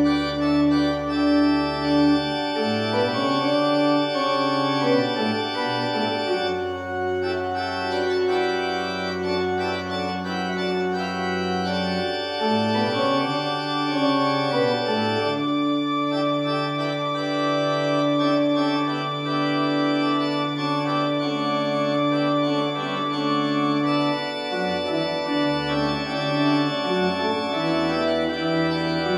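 Organ playing slow, sustained chords over a bass line that steps to a new note every few seconds.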